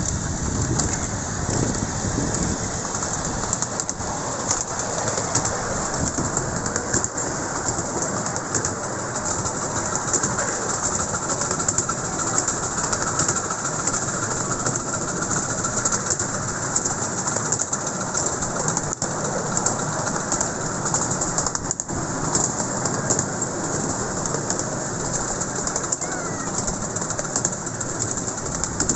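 A 7¼-inch-gauge miniature steam train running along its track, heard from the carriage behind the locomotive: a steady rushing noise of wheels, steam and moving air, with scattered small clicks and a few sharper ticks from the rails.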